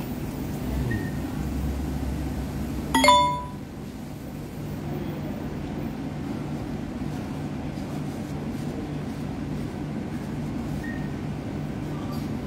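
A single sharp metallic ding about three seconds in that rings briefly and dies away, over a steady low hum.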